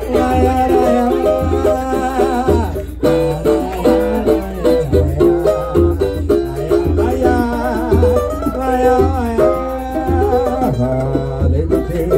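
Instrumental samba passage: plucked strings carry the melody over a steady, pulsing bass beat.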